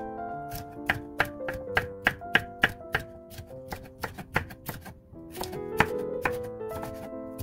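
Kitchen knife slicing a green bell pepper into strips on a wooden cutting board, the blade knocking the board about three times a second, with a short pause about five seconds in. Background music plays throughout.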